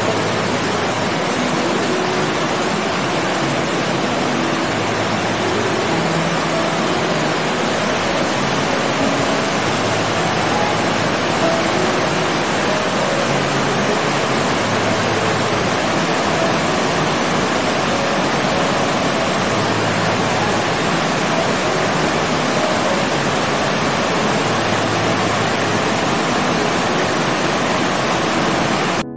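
Whitewater cascade rushing over rocks: a loud, steady rush of water.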